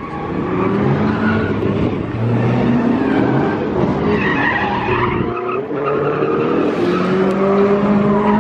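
A car sliding on asphalt: engine held at high revs, its pitch rising and falling, over a steady hiss of skidding tyres. The engine drops off briefly about halfway through.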